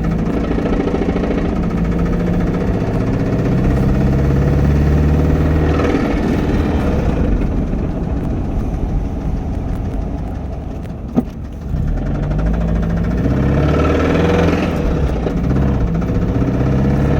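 1994 Mazda Miata's 1.8-litre four-cylinder engine running, its speed dipping and coming back up, with a brief sharp click about eleven seconds in. The owner is asking whether the engine noise is rod knock or a bad lifter.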